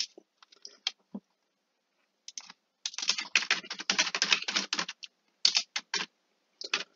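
Typing on a computer keyboard: a few scattered keystrokes, a pause, then a fast run of keystrokes from about three seconds in, thinning out to a few taps near the end.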